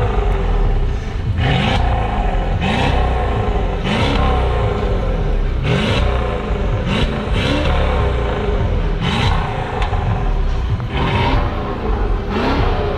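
Mercedes S550's twin-turbo V8 revved in a series of quick throttle blips, about one a second, through catless downpipes and a resonator-deleted exhaust. Each rev rises in pitch and comes with a hissing whoosh from the turbos.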